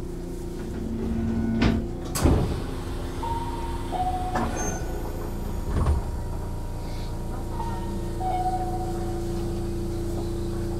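Two-note descending electronic chime repeating about every four seconds over the steady hum of a stationary commuter train. There are two sharp knocks early on.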